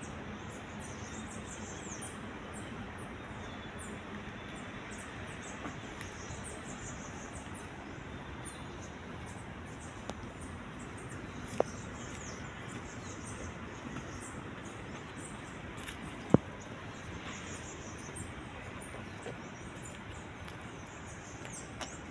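Small birds chirping, many quick high chirps one after another, over a steady background hum. Two sharp clicks stand out, one about 11 seconds in and a louder one about 16 seconds in.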